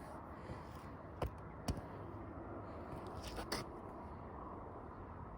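A few faint, sharp clicks or light knocks, three of them in the first half, over low steady background noise, typical of broken parts being handled.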